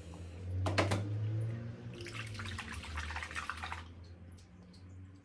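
A hand sloshing about in liquid in a glass dish, fishing out a soaked clear phone case. There is a short splash a little under a second in, and a longer stretch of sloshing in the middle, over a low steady hum.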